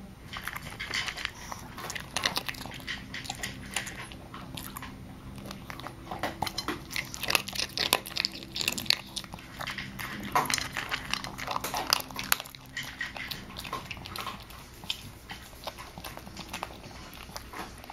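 Small Chihuahua–Pomeranian mix dog eating from a bowl right at the microphone: irregular crunching and clicking bites and chewing, busiest in the middle.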